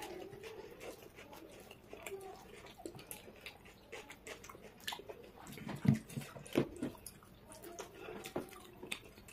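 Close-miked eating sounds from two people eating pav bhaji by hand: wet chewing and lip smacking, with soft squishes as pav bread is torn and dipped into the bhaji. A few louder smacks land about six and six and a half seconds in.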